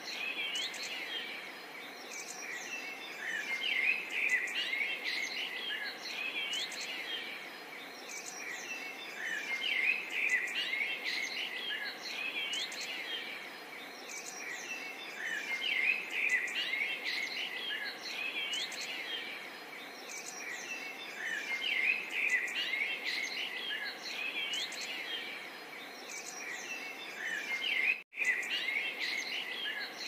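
Several songbirds chirping and singing at once, many short rising and falling calls over a faint steady hiss. The chorus swells about every six seconds, and the sound drops out for an instant near the end.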